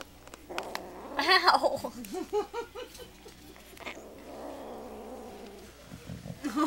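Six-week-old kitten growling and yowling over food it is guarding: a loud yowl about a second in, then a run of short, wavering cries, and a lower, steady growl in the second half.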